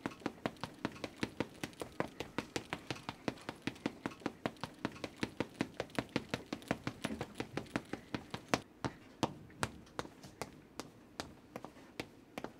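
Quick, light footsteps tapping at about four to five steps a second, growing sparser and more uneven after about eight seconds.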